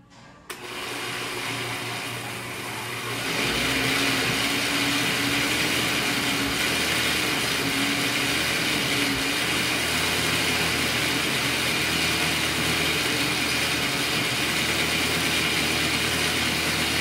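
Countertop blender grinding long-grain rice and almonds in liquid to a fine pulp. The motor starts about half a second in, gets louder about three seconds in with a wavering hum, then runs steadily until it stops abruptly at the end.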